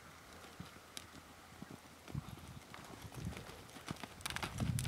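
Hoofbeats of a paint horse on arena sand: soft, dull thuds that grow louder near the end as the horse comes close.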